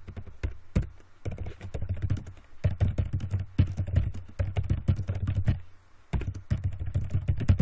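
Typing on a computer keyboard: quick runs of keystrokes with short gaps between them and a brief pause about six seconds in.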